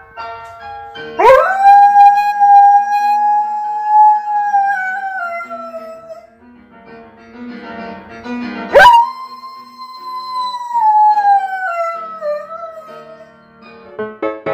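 A dog howls twice in long drawn-out howls. Each sweeps up quickly, holds a steady pitch for a few seconds, then slides down. A simple stepped jingle tune plays underneath.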